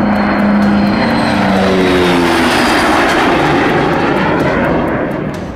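Firefighting air tanker flying low past: a loud engine drone whose note slides slightly lower as it goes by, swelling with a rushing noise and then fading near the end.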